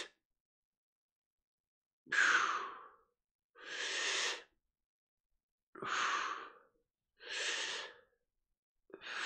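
A man breathing deeply and audibly in and out: five long breaths of about a second each, with short silent pauses between them. This is paced breathing for an exercise done lying down.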